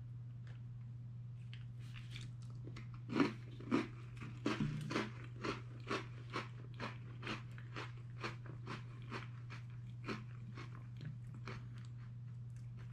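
A person biting into and chewing an Oreo biscuit, close to the microphone: crunchy chews about two a second, loudest a few seconds in, then fading as the biscuit softens.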